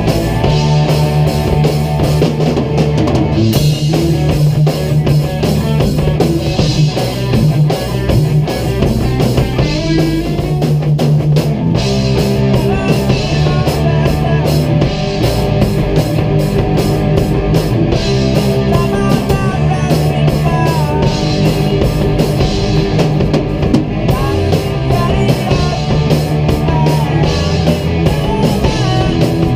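Live rock band jamming: a drum kit and electric guitars played together, loud and continuous.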